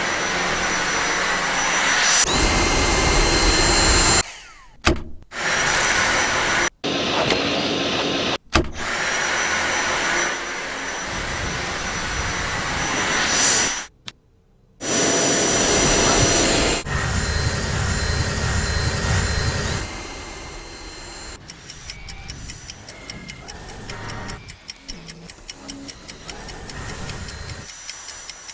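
Dyson V8 Animal cordless stick vacuum running in several separate bursts, each with a high motor whine that rises as the motor spins up, and cutting off abruptly between them. In the last third it runs quieter, with quick clicking.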